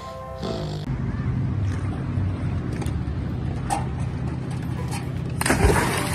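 A young golden retriever leaps off a dock into lake water: a big splash about five and a half seconds in, then churning water as it swims. Before it, a steady low rumble. Background music is heard for the first second.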